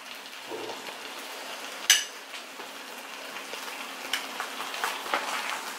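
Faint sizzling of butter-toasted buns on a still-hot flat tawa whose flame is off, with one sharp click about two seconds in and a few lighter ticks near the end.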